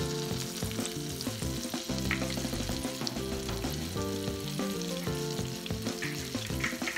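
Battered fish sizzling and crackling as it fries in hot grease in a pan, with background music of steady held notes underneath.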